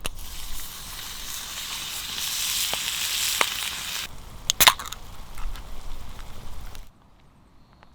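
Food sizzling in a hot frying pan: a dense hiss for about four seconds, then thinner crackling with a sharp pop about four and a half seconds in, cutting off suddenly near the end.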